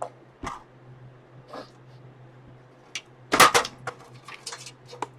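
Plastic clicks and knocks as the front bezel of an old eMachines desktop PC case is pried off, with a loud clatter of several strikes about three and a half seconds in and lighter clicks after it. A steady low fan hum runs underneath.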